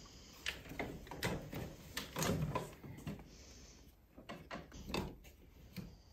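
Irregular clicks, knocks and rattles of hard parts being handled and set down, loudest a little past two seconds in.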